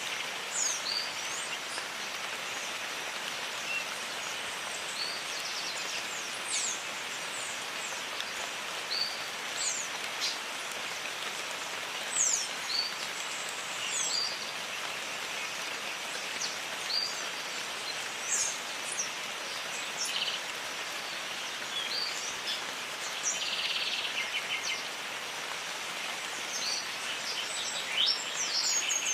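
Steady rain falling in a tropical forest, with birds giving frequent short, high chirps and whistles over it, and a brief buzzy trill a little past the middle.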